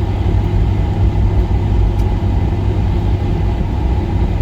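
Steady low rumble inside the cabin of a Boeing 757-300 taxiing to the gate after landing, engines at idle.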